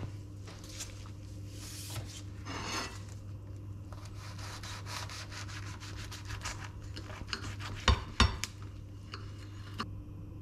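A knife sawing back and forth through a toasted tortilla wrap on a ceramic plate, a rapid crisp crackling. Two sharp knocks follow about eight seconds in, with a steady low hum underneath.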